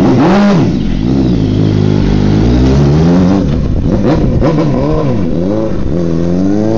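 Suzuki GSX-R 600 sport bike's inline-four engine revving and pulling away, its pitch rising and falling with the throttle several times and climbing again near the end.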